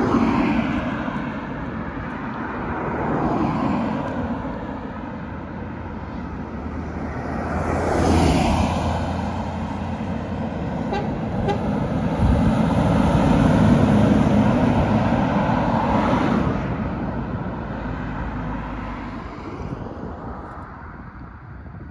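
Heavy trucks driving past one after another, engines running and horns honking. The sound swells and fades with each pass, loudest about eight seconds in and again from about twelve to sixteen seconds, then dies away near the end.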